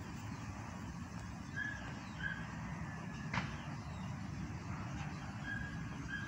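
Outdoor ambience: a steady low rumble, with short whistled bird calls of a single pitch repeating every second or so, and one sharp click a little past halfway.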